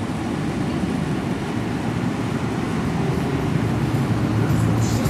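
Road traffic at a junction: cars and a van driving past with a steady low rumble of engines and tyres, growing a little louder near the end, when some light rattling clicks come in.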